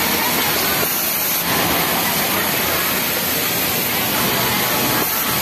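Industrial overlock sewing machine running as a T-shirt sleeve seam is sewn, over a steady, even hiss of garment-factory floor noise.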